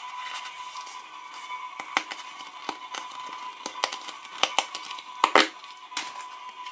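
Paper sticker packet crinkling and crackling in the hands as it is torn open, in a run of sharp crackles, loudest just past five seconds in.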